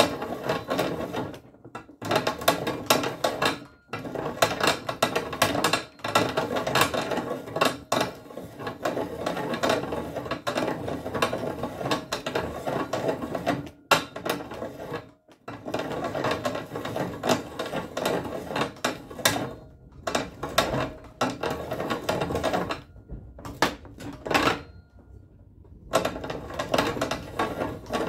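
Homemade reamer turning slowly in an oiled rifle barrel bore, cutting with a chattering metal-on-metal scraping. It comes in stretches of a few seconds with short pauses between them, and a longer lull about three-quarters of the way through.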